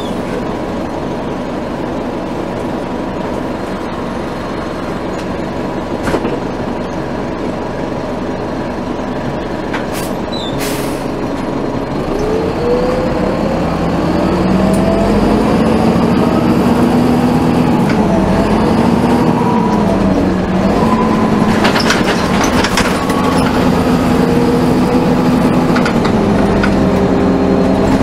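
Cabin sound aboard a 1996 NovaBUS RTS transit bus with a Detroit Diesel Series 50 inline-four diesel and Allison automatic transmission: a steady engine rumble with a few sharp knocks and rattles, then from about twelve seconds in a rising whine as the bus accelerates, growing louder, dipping and climbing again through gear changes.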